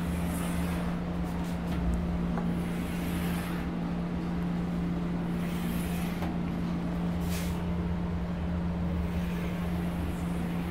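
A steady low hum with a constant tone. Over it come a few brief, soft scraping strokes spaced a few seconds apart, as lines are drawn while writing.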